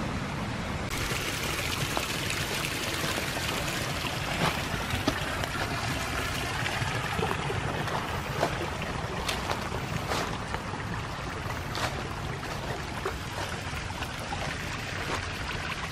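Small rain-fed woodland stream running and trickling over leaf litter, a steady rush of water that grows louder about a second in, with a few short crackles scattered through it.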